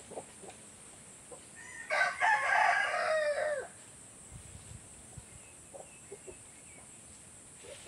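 A rooster crowing once, a call of nearly two seconds that starts about two seconds in and drops in pitch at the end.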